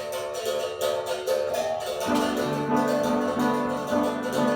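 Live acoustic music of piano, caxixi shakers and berimbau: the caxixis keep a steady, even shaking rhythm over held piano chords, and lower piano notes join about two seconds in.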